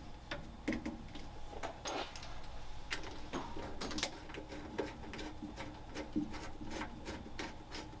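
Hose fittings being handled and screwed onto the brass service valves of a tankless water heater: irregular clicks, taps and scraping of metal fittings and rubber hose.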